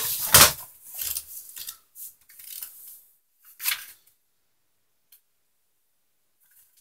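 Handling noises of things being moved on a desk: a few sharp knocks and rustles in the first half-second, lighter rustling and taps over the next couple of seconds, and one more short rustle near four seconds in.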